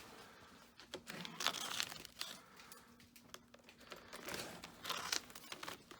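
Paper rustling and crinkling in short bursts as sheets in a folder of old records are handled and leafed through.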